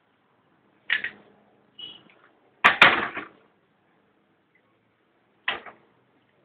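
Plastic toys knocking and clattering as a toddler handles them and drops them against a plastic bucket: a few separate sharp knocks, the loudest a quick cluster about three seconds in.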